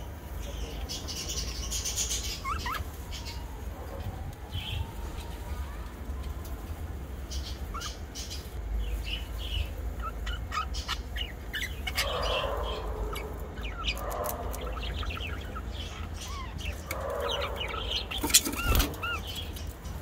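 Budgerigars chirping and chattering: short high chirps and quick up-and-down calls scattered throughout, with bursts of denser warbling chatter past the middle and again near the end. A single sharp knock sounds near the end.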